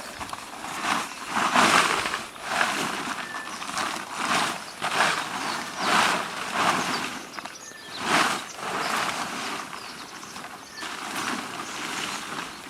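Dry leaf litter and undergrowth rustling and crunching in irregular strokes, about one to two a second, typical of someone walking through the forest floor or working brush.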